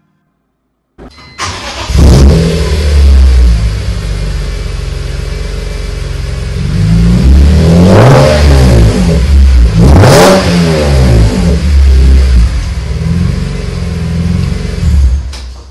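BMW M3 CSL's 3.2-litre straight-six engine started about a second in and blipped. It settles to a loud idle and is revved twice in quick rising-and-falling sweeps later on, then cuts off near the end.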